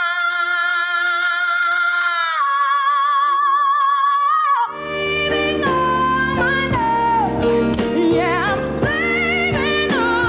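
A woman's pop ballad voice holds a long, very high note with vibrato, then slides down and over. About halfway through it cuts abruptly to another recording: a woman singing quick runs over full band accompaniment.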